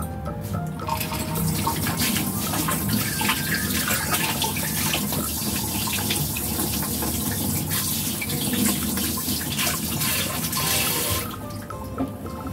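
Water running from a tap, a steady rushing splash that cuts off abruptly about eleven seconds in, over quiet background music.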